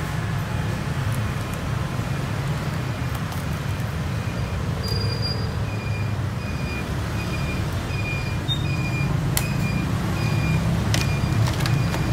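Steady rumble of passing street traffic. From about three seconds in, a short high beep repeats about twice a second, and a few sharp clicks come near the end.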